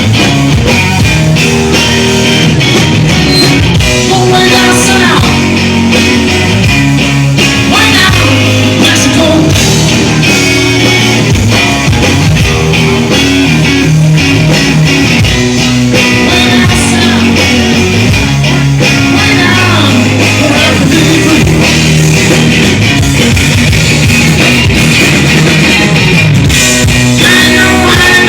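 Live blues-rock band playing loudly: electric guitar leading over bass and drum kit, with bending guitar notes.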